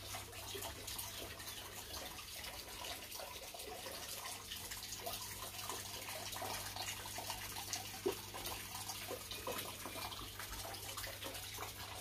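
Water trickling and dripping irregularly over a steady low hum, with one sharper drip or tap about eight seconds in.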